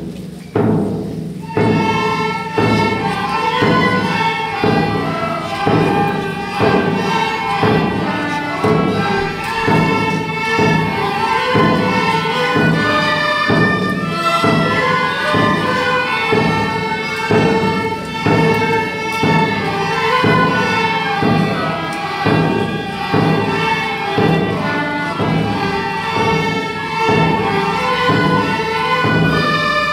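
A children's ensemble of tin whistles and fiddles plays a march tune over a steady drum beat. A few drum strokes open it, and the melody comes in about a second and a half in.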